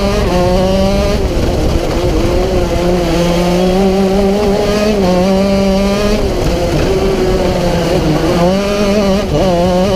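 Racing kart engine heard onboard, running at high revs with small changes in pitch through the corners; the pitch drops briefly about eight seconds in and then climbs again. Low wind rumble on the microphone underneath.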